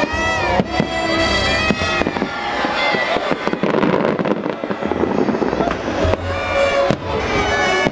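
Fireworks bursting, with a few sharp bangs and some crackle, over loud music from the fireworks show's soundtrack.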